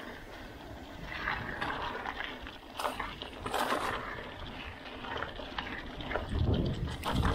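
Mountain bike rolling along a forest trail: a rough rushing of tyre and wind noise with scattered clicks and knocks from the bike.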